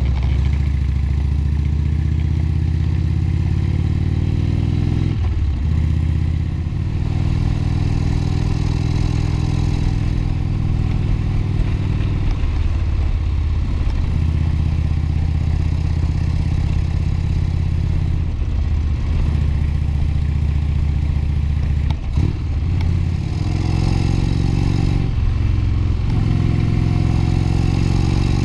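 Indian Thunder Stroke 111 V-twin on a 2015 Indian Chief Vintage running under way through Rush Racing slip-on exhausts, heard from the handlebars. The engine note rises and falls with the throttle several times, with short drops in pitch and level as the rider rolls off.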